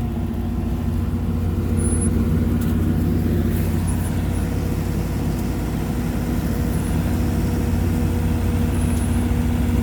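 Skid steer loader's engine running steadily.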